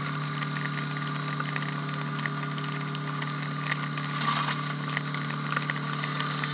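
CNC milling machine cutting an aluminum part: a steady hum and a steady high whine, with a noisy haze and many small scattered ticks.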